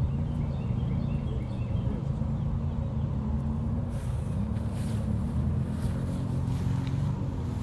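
An engine running steadily with a low, even drone, its pitch dipping briefly about four seconds in.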